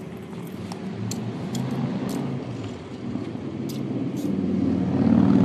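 A motor vehicle's engine running nearby, a low rumble that grows louder toward the end, with a few faint ticks over it.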